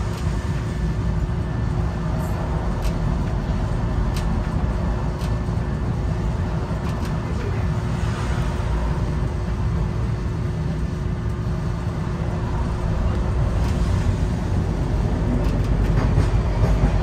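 Nagasaki Electric Tramway streetcar heard from the cab: a steady low rumble with a constant hum and scattered sharp clicks, getting a little louder near the end.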